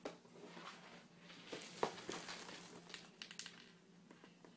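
Cardboard shoebox being handled: scattered scuffs, ticks and faint crinkling, with one sharp tap just under two seconds in and a quick run of ticks a little past three seconds.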